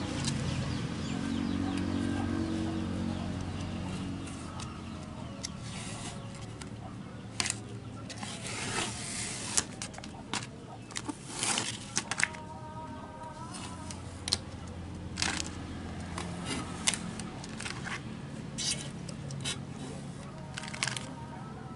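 Airbrush compressor running with a steady hum, while the airbrush sprays candy paint in short hissing bursts, many in a row through the middle and later part.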